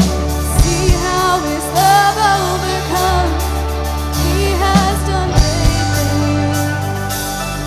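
Worship song: a singing voice over a band with sustained bass notes and drum hits.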